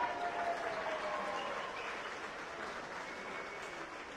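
Spectators applauding and cheering a try, with a few voices calling out over the clapping. Loudest as it begins, then easing slightly.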